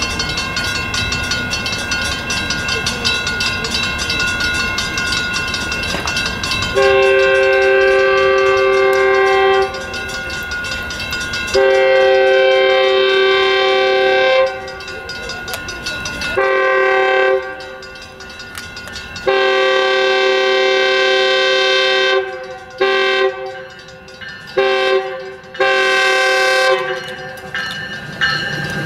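Horn of an approaching Metrolink diesel locomotive sounding the grade-crossing signal: two long blasts, a short one, then another long one that breaks into several short toots near the end. Before the horn starts, a steady ringing, likely the crossing bells, fills the first seven seconds or so.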